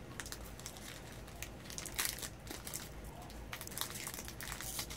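Foil booster-pack wrapper crinkling and crackling as a Magic: The Gathering pack is handled and opened, in short irregular crackles. The sharpest come about two seconds in and again in a cluster near the end.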